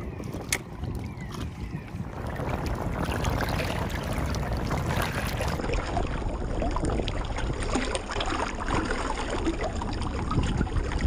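Small waves lapping and splashing against shoreline stones and seaweed close by, a busy wash of little splashes that grows louder about two seconds in, with wind rumbling on the microphone.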